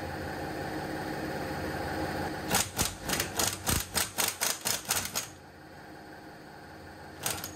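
Impact wrench hammering on the rear axle hub nut in a run of about a dozen quick bursts, with one more short burst near the end, breaking the nut loose. A steady hum fills the first couple of seconds before it.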